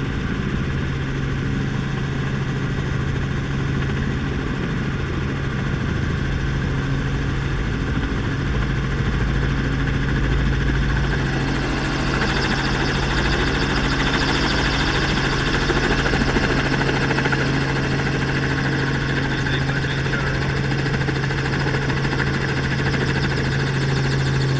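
Small helicopter's engine and rotor running steadily, heard from inside the open-door cabin, with a steady low hum. A rushing hiss grows louder about halfway through.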